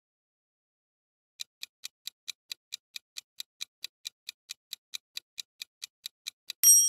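Countdown-timer sound effect: clock ticks at about four a second, starting about a second and a half in and ending in a bright chime-like ding near the end.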